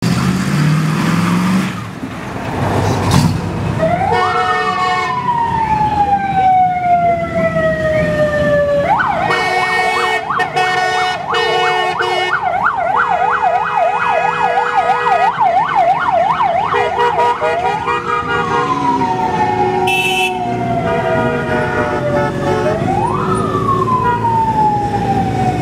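Electronic siren sounding over passing motor noise. It starts a few seconds in with a wail, a quick rise and a long slow fall. It switches to a fast yelp for about eight seconds, then returns to the wail for two more cycles.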